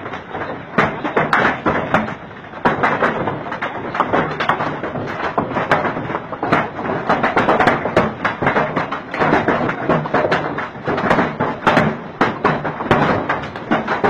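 Hailstones the size of chicken eggs pelting down: a dense, irregular run of thuds and taps over a constant rush of noise.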